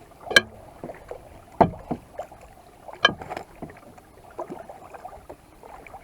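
Kayak paddling on calm water: paddle strokes and drips, with a few sharp knocks about a second and a half apart and lighter taps between.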